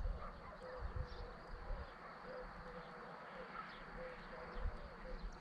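Faint steady buzz of a flying insect, with a few short low thumps.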